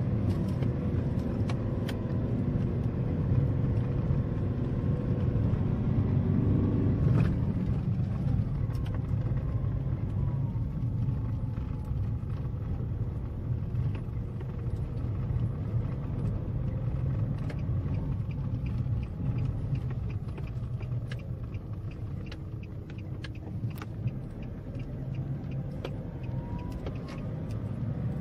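Steady low rumble of a car driving slowly along a dirt road, heard from inside the cabin, with scattered small clicks and rattles from the rough surface.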